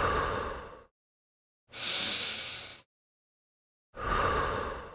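A person breathing audibly, three breaths of about a second each with pauses between: out, in, and out again, demonstrating exhaling on the abdominal contraction and inhaling on the release.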